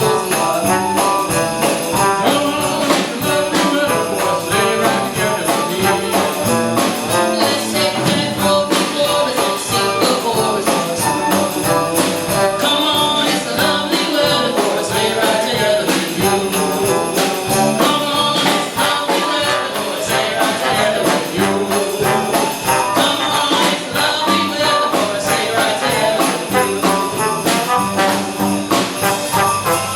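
Live jazz band playing an instrumental holiday tune, with sleigh bells jingling on a steady beat.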